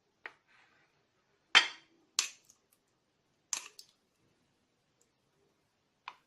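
Sharp knocks and clinks of kitchen utensils against containers: five short strikes, the loudest about a second and a half in.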